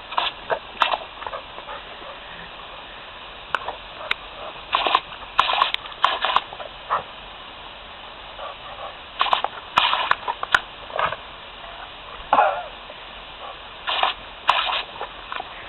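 A Labrador biting and snapping at a water spray from a garden hose: a string of short, irregular splashy bursts.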